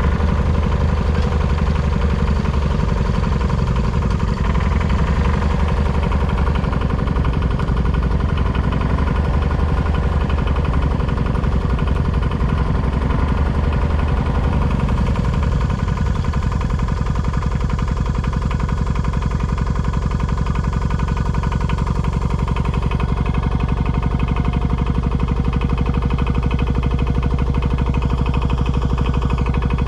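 Two-stroke diesel engine of a Holder single-axle tractor running steadily throughout. The engine note shifts in the first half while the tractor is driven, then settles into an even running sound from about halfway.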